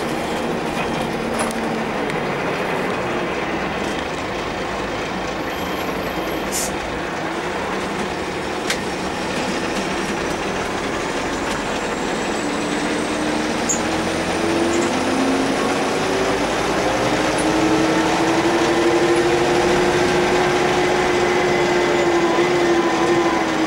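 Karosa C934 bus with its Renault MIHR diesel engine, heard from the passenger cabin while driving. The engine runs low and quietly through the first half, then its pitch rises steadily from about halfway and it grows louder as the bus accelerates, levelling off near the end.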